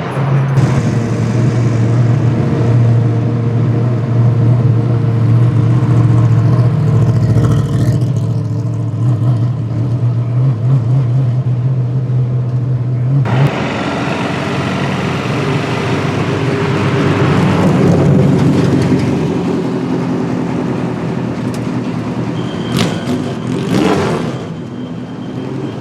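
Vintage race car engines running at a steady idle. About halfway through the sound switches abruptly to a different engine, which swells up briefly and later gives a short sweeping whine.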